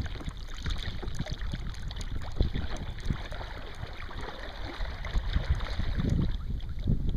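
Water sloshing and splashing along a kayak's hull as a wooden Greenland paddle dips in stroke after stroke, with low wind rumble on the deck microphone; it grows louder near the end.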